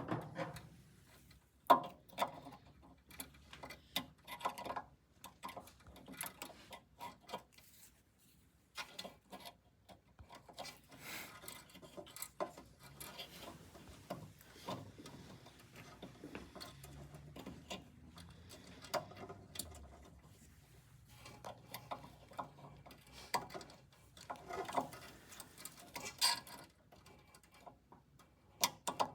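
Hands working small fittings on a dental press furnace: irregular clicks, light taps and rubbing as parts are pushed and fitted into place, with a sharp click about two seconds in.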